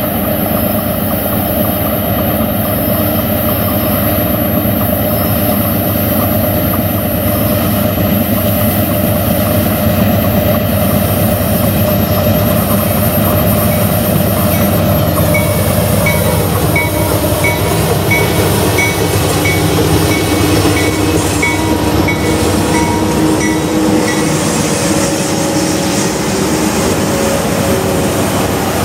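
Union Pacific diesel-electric locomotives, an AC44CWCTE and an SD70ACe, working under load up a grade as the train approaches and passes close by. Their engines make a loud, steady drone, with the pitch dropping as the lead units go by. A light, regular high ticking, about one and a half a second, runs for several seconds in the middle.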